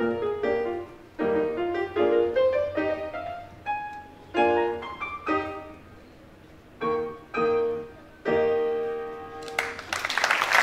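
Grand piano playing the closing bars of a classical piece: chords, a quick rising run, then short chords and a final held chord. The audience starts applauding about a second before the end.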